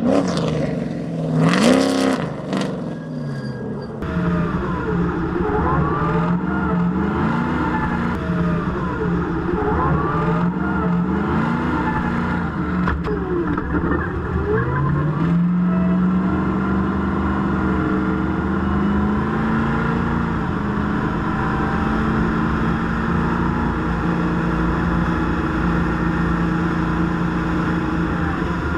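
Stadium Super Truck's V8 engine running hard, its pitch rising and falling over and over as the driver accelerates and lifts, with a loud surge about two seconds in. In the second half the engine holds a steadier, high pitch.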